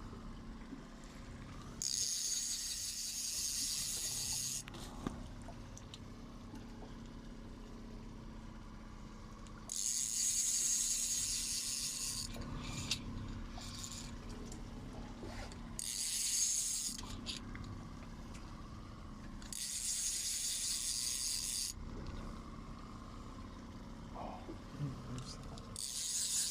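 Fishing reel's ratchet and drag buzzing in repeated bursts of two to three seconds as a spring salmon pulls line off, over a steady low hum.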